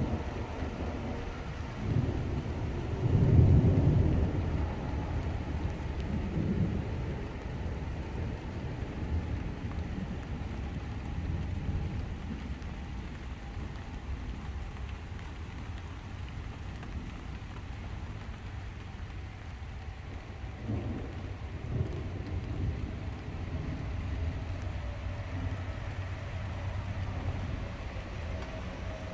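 Thunderstorm: steady rain with rumbling thunder. The loudest deep rumble comes about three seconds in, shortly after a lightning flash, with a weaker one a few seconds later and more rumbling about twenty seconds in.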